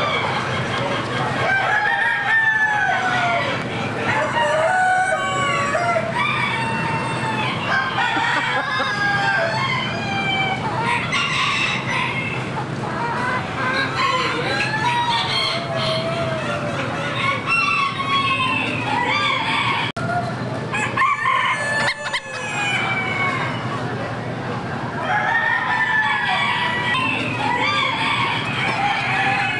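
Many roosters crowing over one another without pause, mixed with chickens clucking, from a barn full of caged poultry.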